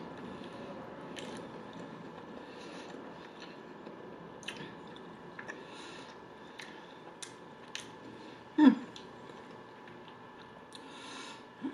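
A person chewing a mouthful of bacon burger with the mouth closed, making soft wet clicks and smacks. About two-thirds of the way in, a short hummed 'mm' that falls in pitch is the loudest sound.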